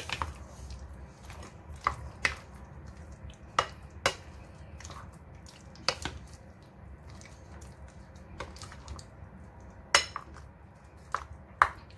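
A spoon knocking and scraping against a glass bowl while chicken pieces are stirred into a thick yogurt-spice marinade, with irregular sharp clinks every second or two.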